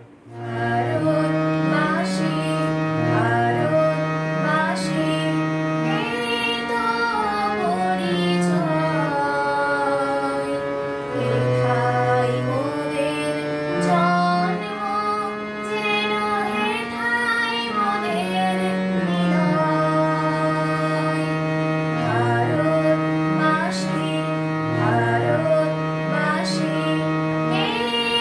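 Harmonium played with held reed notes and a moving bass line, a girl's voice singing an ornamented melody over it.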